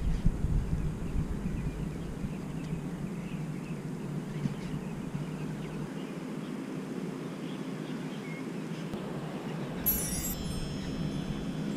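Faint low background noise, then about ten seconds in a sudden bright chime-like sound effect that rings for about a second and a half.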